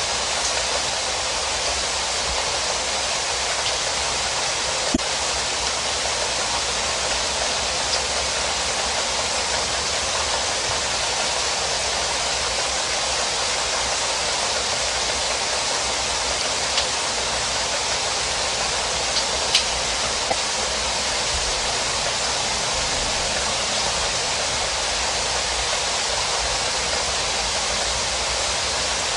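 Steady heavy rain, an even hiss, with a few sharper drop ticks now and then.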